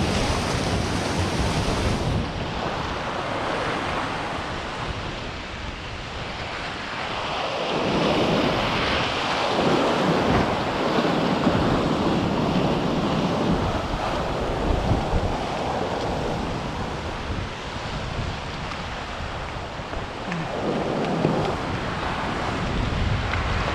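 Sea waves breaking and washing through gaps between coastal rocks, swelling louder a few times as sets come in, with wind buffeting the microphone.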